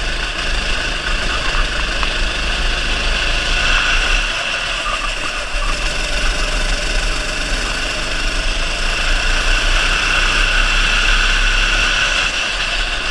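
Go-kart engine running hard on a lap, heard on board; it eases off about four seconds in through a tight bend, then builds again.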